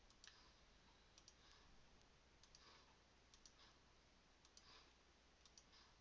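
Very faint clicking of computer keyboard keys being typed, in short clusters about once a second.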